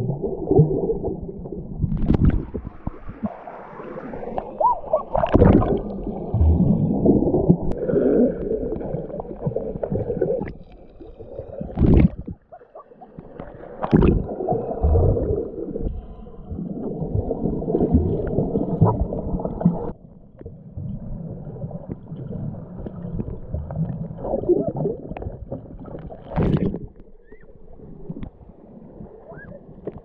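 Stream water rushing and bubbling as heard by a camera held underwater, muffled and dull, with a few short, sharp splashes or knocks scattered through it.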